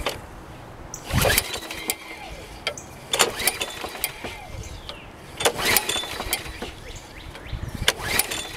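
Cold start of a Craftsman mower's 6.5 HP Briggs and Stratton engine after a long time in storage: the recoil starter cord is pulled four times, about two seconds apart, and the engine turns over each time without catching.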